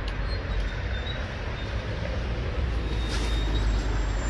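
Steady low rumble of road traffic, a motor vehicle engine running close by.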